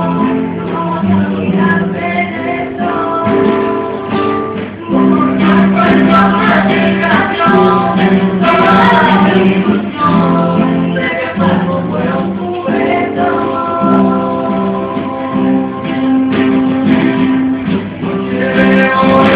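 Live acoustic guitar, strummed and plucked, accompanying a singer who holds long notes.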